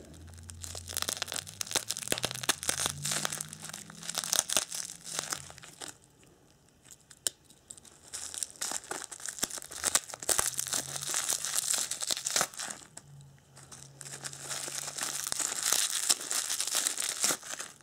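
Tape being torn off and wrapping crinkling and rustling in crackly stretches as knives are unwrapped, with a short pause about six seconds in.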